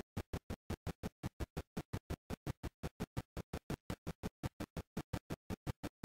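Helicopter rotor beating in a fast, even rhythm of about five thumps a second, with near-silence between the beats.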